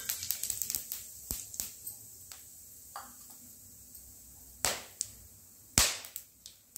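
Cumin seeds, cloves and green cardamom crackling and spitting in hot oil in a kadhai: dense quick pops that thin out over the first couple of seconds, then two much louder sharp pops about a second apart near the end.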